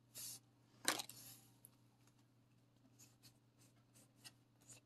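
Faint rustle of trading cards being handled: a short swish at the start, a louder swipe of card sliding against card about a second in, then a few soft flicks and taps as the cards are shuffled through.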